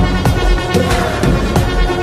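Electronic music with a heavy bass and a steady, evenly spaced drum beat.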